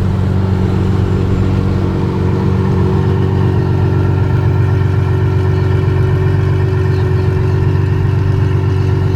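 Ferrari 812's V12 engine idling steadily at an even, unchanging pitch, with no revs.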